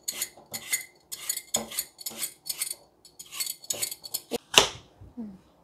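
Handheld peeler blade scraping the skin off an apple in quick repeated strokes, about two to three a second, with one louder, sharper scrape near the end.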